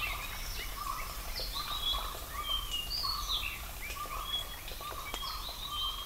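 Field recording of several forest birds calling at once: short whistled notes and chirps at different pitches, with a lower call repeated about twice a second.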